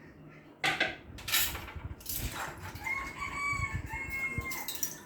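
A rooster crows once, a drawn-out call of about two seconds starting a little after two seconds in. Before it come short bursts of splashing water and clattering dishes from washing up by hand.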